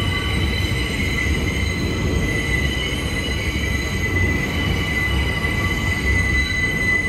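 Subway train's steel wheels squealing as it rounds the tight turnaround loop, a steady high squeal of several tones over the continuous low rumble of the car, heard from inside the train.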